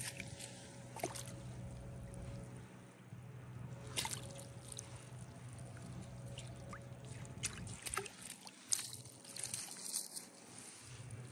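Light splashing and sloshing of shallow pond water as a chain pickerel is netted in a landing net at the bank, with scattered short splashes and rustles, one sharper about four seconds in and a cluster near the end.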